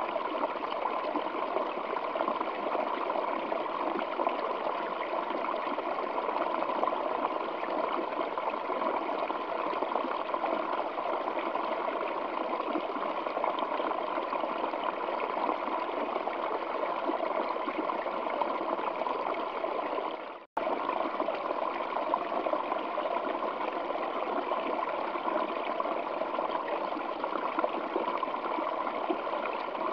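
Waterfall flowing over rocks: a steady, even rush of water. It cuts out for an instant about two-thirds of the way through, then carries on unchanged.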